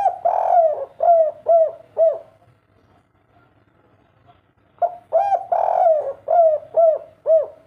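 Spotted dove cooing twice. Each phrase is a few short notes, a longer drawn note, then three short closing 'kuk' notes, the three-kuk song type.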